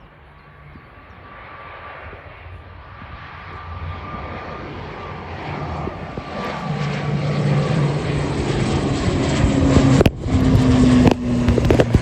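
ATR 72-600 twin-turboprop on takeoff, its engines and propellers giving a steady hum with a few fixed tones that grows louder throughout as it draws nearer. The sound briefly cuts out twice near the end.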